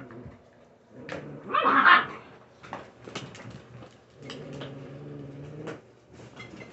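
Puppies chewing on bully slices, with scattered clicks and knocks of teeth and paws. Twice a dog's voice: a short, loud cry about a second and a half in, and a longer, lower sound past the middle.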